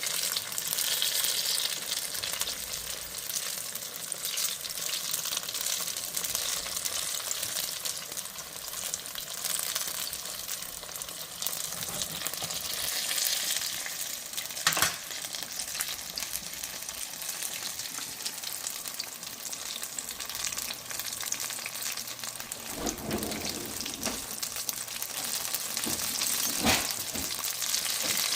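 Turon, banana and jackfruit rolls in spring-roll wrappers, frying in hot oil with a steady sizzle and crackle. Two sharp clicks break in, about halfway through and near the end.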